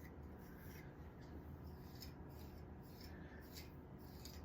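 Comb being drawn through hair coated in a wet hair mask: faint, irregular scratchy strokes.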